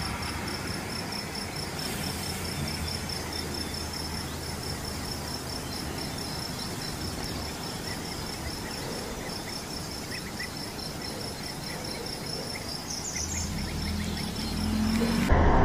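Insects trilling steadily in a fast, even pulse, over the faint low hum of a distant SUV engine. The engine sound grows louder near the end.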